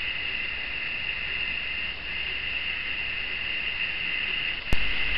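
Steady high-pitched background hiss, with one sharp click near the end.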